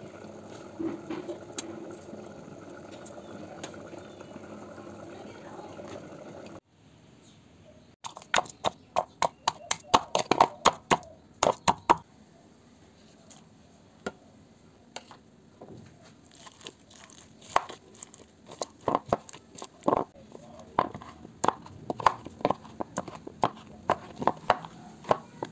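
A dark stone pounding garlic cloves and dried red chillies on a plate, then mashing roasted tomatoes: a fast run of sharp knocks, about three or four a second, then slower, uneven knocks and squelches. Before that, a few seconds of steady scraping and rustling as roasted tomatoes are pushed off a steel tray with metal tongs.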